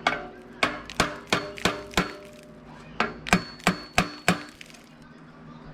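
Hammer blows on metal, a ringing strike about three times a second: a run of about six, a short pause, then about five more.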